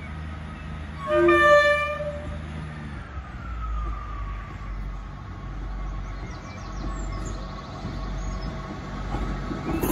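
Diesel multiple-unit train sounding one short horn blast about a second in as it approaches, then its engine rumble and wheel noise growing louder as it nears.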